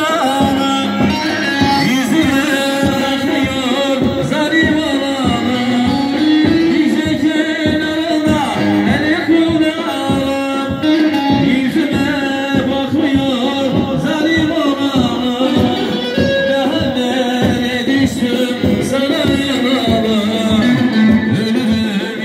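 Live Turkish halay dance music played by a saz band through loudspeakers: a fast, even drum beat under a bending folk melody, with singing.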